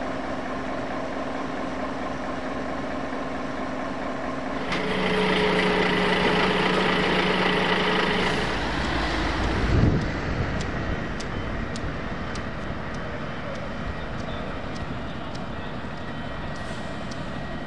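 Heavy vehicle engine running. It gets louder about five seconds in for a few seconds, then gives a brief loud peak near ten seconds and settles, with faint regular ticking afterwards.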